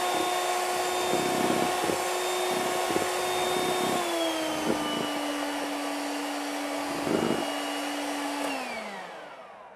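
Handheld electric mixer whirring as its beaters whip egg whites into meringue, with the beaters knocking against the bowl now and then. The motor's pitch drops a little about four seconds in, and near the end it is switched off and winds down.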